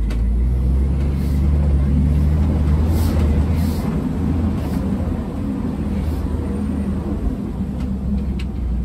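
Safari ride truck's engine running as it drives along the track, a steady low drone that swells for the first few seconds and then eases a little.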